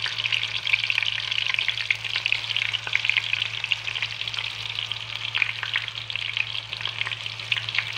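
Masala-marinated chicken pieces and curry leaves frying in hot oil in a pan: a steady sizzle full of small crackling pops as more pieces go into the oil.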